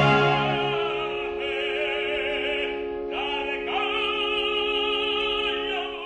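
Operatic singing: a trained classical voice holds long notes with a strong vibrato, moving to a new note about a second and a half in and again about three seconds in.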